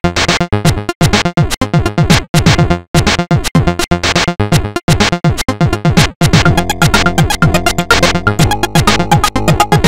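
Loud electronic music made in the PixiTracker app: rapid synth-drum hits, about four a second, each falling in pitch. About six seconds in, it grows denser, with sustained synth chords under faster stuttering hits.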